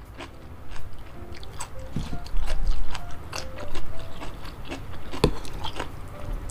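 Close-miked chewing of soft, saucy boneless chicken feet: wet mouth clicks and smacks, with a sharper click about five seconds in.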